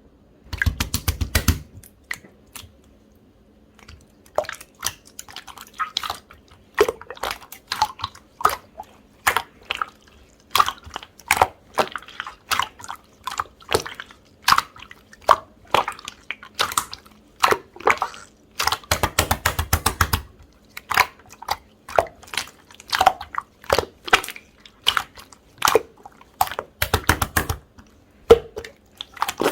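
Pink pearl slime being pressed and stretched by hand, making a run of sticky clicks and pops. There are a few longer squishing stretches: one right at the start, one about two-thirds in, and one near the end.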